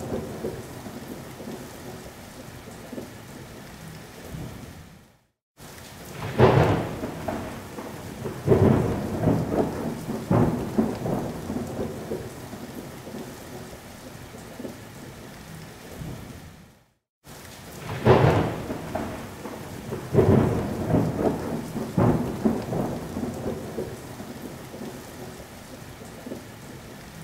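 Thunderstorm: steady rain with rolling thunder, each sharp crack dying away into rumbling. The same recording loops, dropping out to silence for a moment about five seconds in and again a little past the middle.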